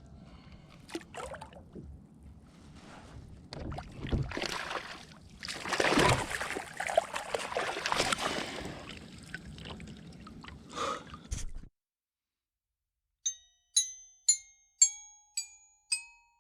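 Noise of water and handling aboard a fishing kayak, with a few knocks and louder rustling splashy stretches. It cuts off abruptly at about two-thirds of the way. After a short silence comes a run of bright, ringing chime notes like a glockenspiel jingle, about one every half second.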